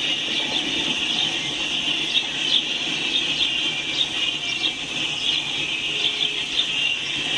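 Freight cars of an intermodal train rolling past, with a steady high-pitched wheel squeal over the rumble of the wheels on the rails.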